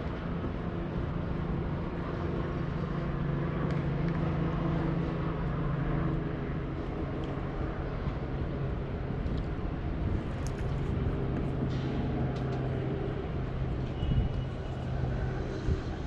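A steady low engine drone whose pitch shifts slightly as it goes, with a few faint clicks in the second half.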